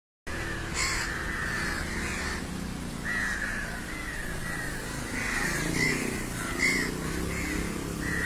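A flock of crows cawing, with many short harsh calls overlapping one another.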